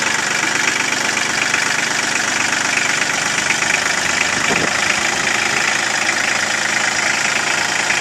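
Kubota compact tractor's diesel engine running steadily with a fast, even clatter while the tractor moves slowly along.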